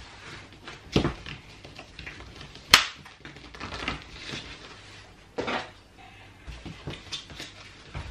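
Large cardboard box being handled and opened by hand: scattered knocks, scrapes and rustles of cardboard and packing tape, with one sharp crack a little under three seconds in.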